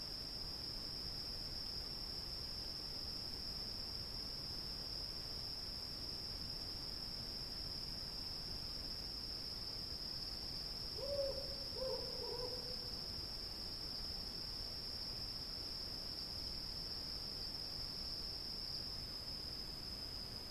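Crickets chirping in a steady, high-pitched chorus that never lets up. Near the middle, two short, low calls from another animal sound over it.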